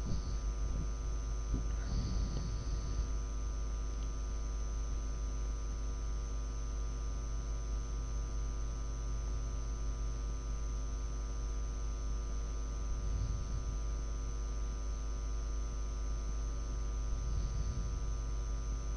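Steady electrical mains hum in the recording, a constant buzz made of many even tones, with a few faint soft noises over it.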